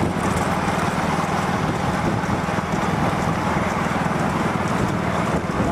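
A vehicle engine running steadily on the move, a continuous low drone with a fast pulsing beat and no change in pace.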